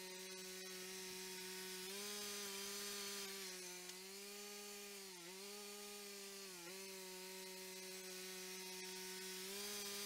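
The 35 hp gas engine of a Cook's 3238 hydraulic band sawmill running at a steady speed while the mill saws. Its pitch sags briefly twice about midway.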